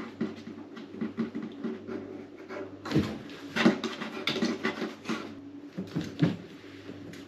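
A cat play-fighting with a hand under a cabinet: irregular scuffling and scratching of paws and claws on the wooden floor and furniture, with several louder knocks in the middle.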